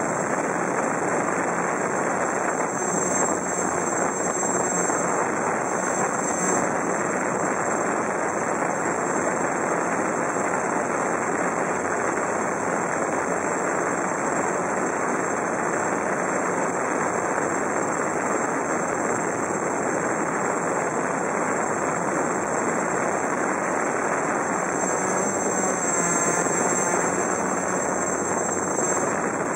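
GAUI QuadFlyer 330X quadcopter's electric motors and propellers buzzing steadily in flight, heard from on board, with wind on the microphone. The motor pitch wavers and rises briefly near the end.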